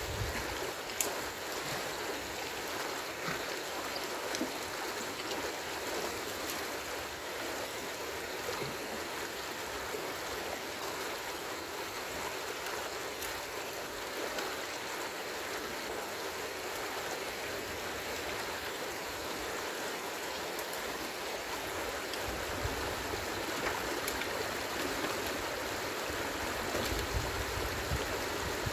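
Stream water rushing steadily, the flow swollen after rain, with a few faint clicks.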